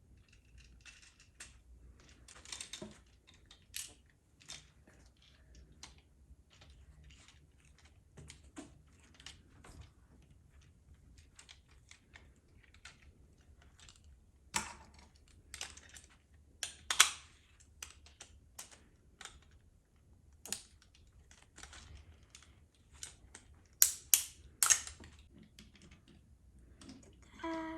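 Irregular small plastic clicks and taps as the parts of a take-apart toy robot are handled, screwed and fitted together, with a few louder, sharper clicks in the second half.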